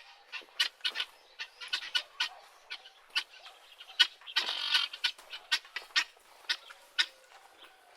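Guinea fowl calling: a rapid, irregular string of short, sharp cackling notes, with one longer, louder harsh call about four and a half seconds in.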